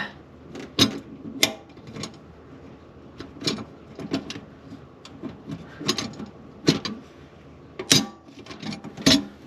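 Irregular sharp metal clicks and taps, about a dozen, from working a garbage disposal's clip (snap) ring onto the sink flange's mounting rings, which is not seating easily.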